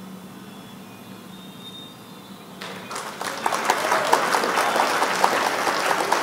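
A faint steady hum, then about two and a half seconds in a recorded applause sound effect starts: many hands clapping for several seconds. It marks the answer being revealed.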